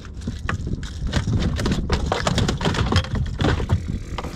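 Rapid, irregular knocks and rattles against a plastic kayak hull as a freshly caught sea bass and the rod and lure are handled during unhooking.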